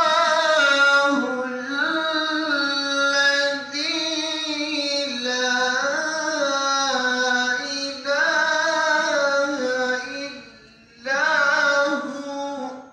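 A man reciting the Quran in the melodic tilawat style, drawing out long held notes with ornamented turns of pitch. He pauses for breath about ten and a half seconds in, then sings one more short phrase.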